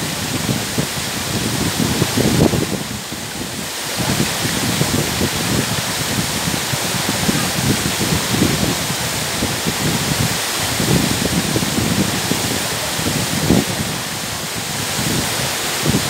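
Waterfall pouring down a rock face onto boulders: a steady rushing hiss of falling water, briefly a little softer about three seconds in.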